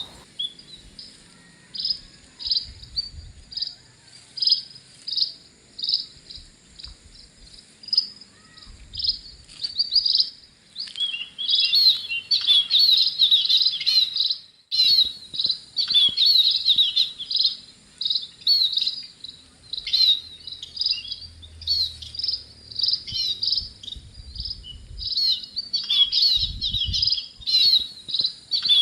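Small songbirds chirping in short repeated notes, about two a second at first, then building about eleven seconds in into dense, continuous twittering. A steady high insect buzz runs underneath.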